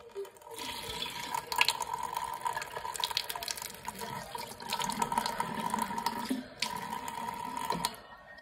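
Water from a kitchen tap running into a sink, splashing over a hand held in the stream to rinse the face. The flow comes on strong about half a second in and stops near the end.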